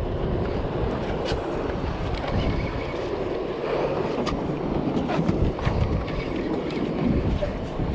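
Steady wind on the microphone and sea water washing around a small open fishing boat, with a few faint clicks.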